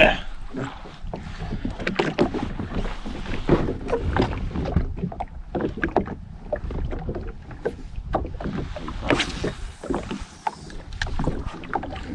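Small waves slapping and sloshing irregularly against the hull of a drifting Sea-Doo FishPro jet ski, over a steady low rumble of wind on the microphone.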